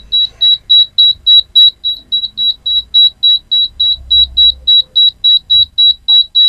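Yongma digital rice cooker's buzzer beeping nonstop at one high pitch, about four short beeps a second. The endless beeping, with the blinking display, is the fault under repair, which the technician puts down to a problem in the power supply.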